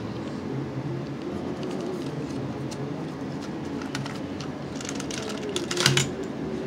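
Hands handling a cardboard cassette box, a cassette and styrofoam packing: scattered light clicks and rustles, with a louder rustling scrape about six seconds in, over a steady low hum.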